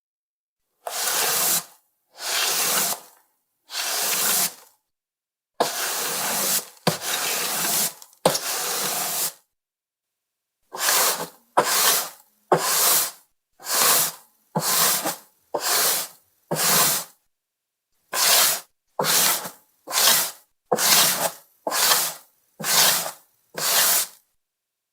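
Flat microfibre mop swishing across a wooden parquet floor in separate strokes: a few slow, long sweeps, then quicker, shorter strokes at about one a second.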